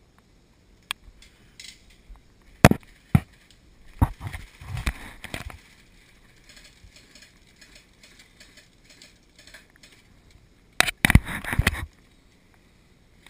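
Airsoft gunfire close by: a few single sharp cracks in the first seconds, a scattered cluster a little later, and a rapid burst lasting about a second near the end.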